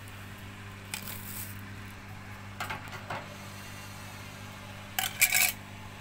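Hard plastic clicks and rattles from handling the washing machine's drain filter cap and housing, with the loudest cluster of sharp clacks about five seconds in, over a low steady hum.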